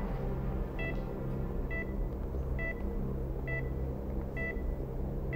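Hospital patient monitor beeping with the heartbeat: short beeps at one pitch, evenly spaced at just under one a second, over a low steady hum.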